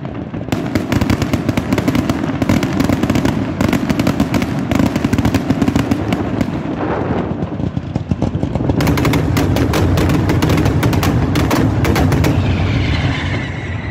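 Mascletà firecrackers going off in a rapid, unbroken string of sharp bangs, thinning out about seven seconds in and then crowding into a dense, nearly continuous barrage.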